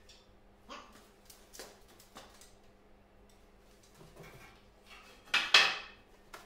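Scattered metallic clinks and knocks of steel parts and tools being handled, with one loud ringing metal clank about five seconds in. A faint steady hum runs underneath.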